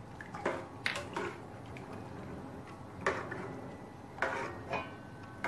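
A spoon stirring soaked chickpeas in a large metal pot of water, with scattered clinks and scrapes of the spoon against the pot every second or so.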